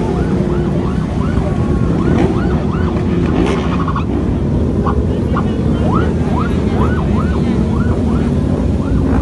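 Police escort siren on a rapid rising yelp, about two to three whoops a second, breaking off for a moment about three seconds in and then starting again, over the steady low drone of a large pack of motorcycles riding past.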